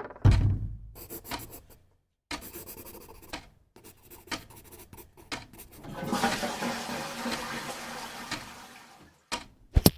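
A string of separate short sound-library effects, one after another with brief silent gaps. A sudden low boom with a decaying tail opens it, followed by scratchy clicking noises. About six seconds in comes a few seconds of rushing, water-like noise, and two sharp hits come near the end.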